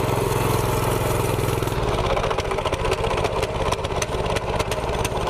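Mini bike's small single-cylinder engine running under way, with the choke brought in a tiny bit to try to cure its bogging, which is taken for a lean mixture. The engine runs loudest for about the first two seconds, then eases off a little.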